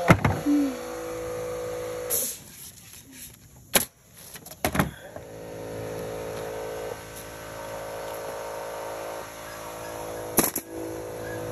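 Steady motor hum that drops out for a couple of seconds about two seconds in, with a few sharp knocks scattered through it.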